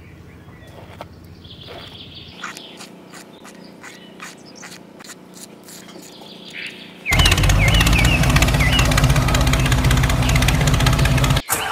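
Faint regular ticking, about three ticks a second, then a small engine starts running steadily about seven seconds in, with birds chirping over it; the engine sound cuts off abruptly near the end.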